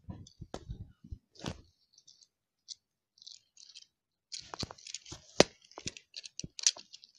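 Die-cast toy car and plastic toy pieces clicking and knocking as they are handled and set in place: a few knocks in the first second and a half, a near-quiet stretch, then a quick run of clicks from about four seconds in.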